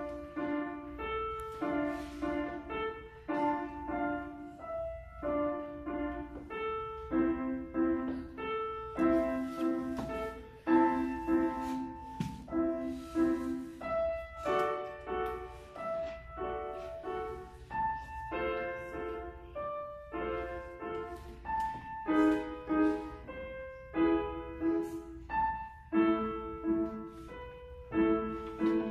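Grand piano being played live: a piece built on a steady, repeating pattern of chords with a melody line above it.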